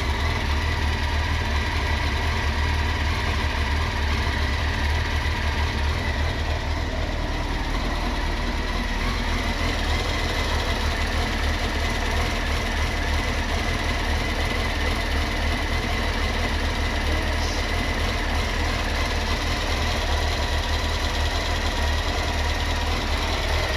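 Honda CBR900RR Fireblade's inline-four engine idling steadily at operating temperature, run up after new radiator hoses were fitted to check for coolant leaks.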